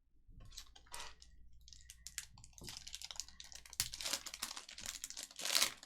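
Crinkling and rustling of Panini Prizm trading card packs and cards being handled, with a run of sharp crackles that is loudest about four seconds in and again near the end.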